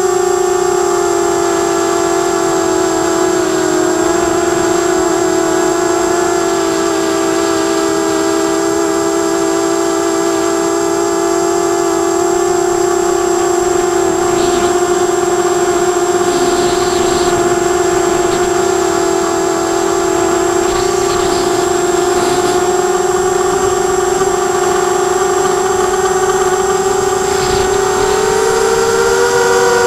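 Quadcopter's electric motors and propellers whining steadily in flight, heard through the onboard camera. The pitch sags slightly a few seconds in and rises again near the end.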